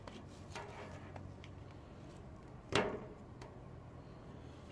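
Flat-blade screwdriver prying the plastic cover off a Pontiac Firebird Trans Am pop-up headlight motor: a few light clicks, then one sharp snap about three seconds in and a smaller click just after.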